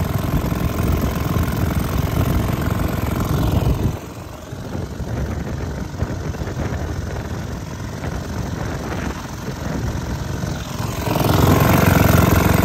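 1925 Caille Pennant Lightweight Twin outboard, a small two-cylinder two-stroke of about 2¾ horsepower, running steadily under way with its variable-pitch propeller in forward high gear. About four seconds in it drops to a quieter, more distant sound, then comes back up loud near the end.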